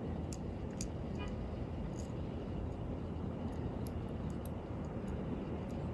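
Faint, scattered small clicks of fine tweezers on the tiny parts of a quartz watch movement as a little gear is set into its slot, over a steady low background noise.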